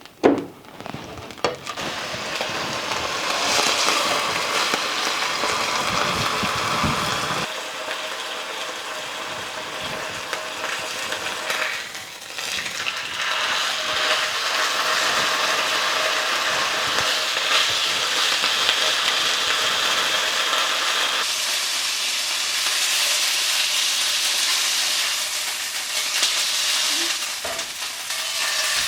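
Pork chop searing in hot oil in a skillet, a steady sizzle that dips briefly about twelve seconds in. A sharp knock sounds just after the start.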